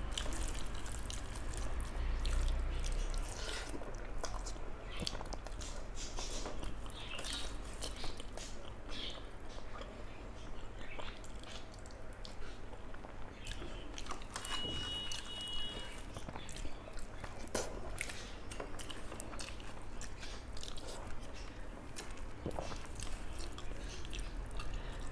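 A person chewing and eating rice and curry close to the microphone, with irregular wet smacks and mouth clicks.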